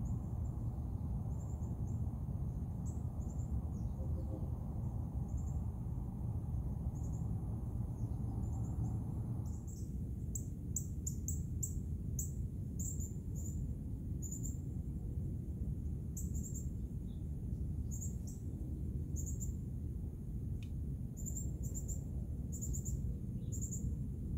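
Outdoor ambience: a steady low rumble under short, high-pitched chirps from insects or birds, repeating irregularly and growing busier about ten seconds in.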